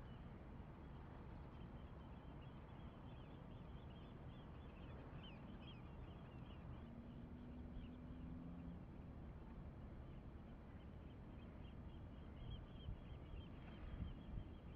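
Faint outdoor harbour ambience: a steady low rumble with faint twittering bird calls coming and going. About seven seconds in, a brief low steady tone sounds for about two seconds.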